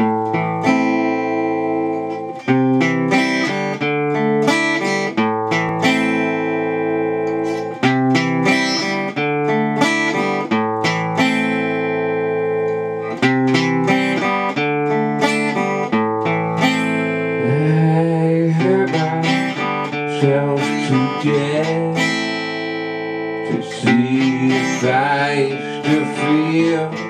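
Acoustic guitar playing a slow picked chord pattern, each note struck separately and left to ring into the next.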